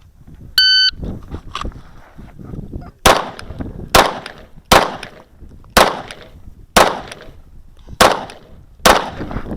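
An electronic shot timer beeps once to start the stage. About two and a half seconds later a Kahr CW9 9mm pistol fires seven shots, roughly one a second, each loud crack trailing off briefly.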